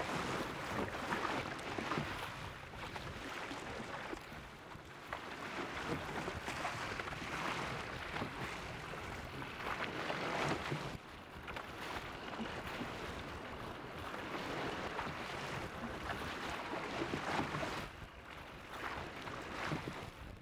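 Wind blowing outdoors, a rushing noise that rises and falls in gusts every few seconds.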